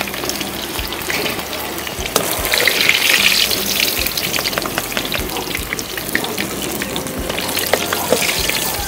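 Food sizzling as it fries in hot oil in a pan, with a louder swell of sizzling about two and a half seconds in and scattered light clicks throughout.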